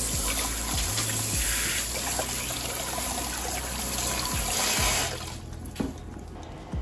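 Kitchen tap running into a stainless steel sink, the stream splashing over sausages being rinsed by hand; the water cuts off about five seconds in, followed by a couple of light knocks.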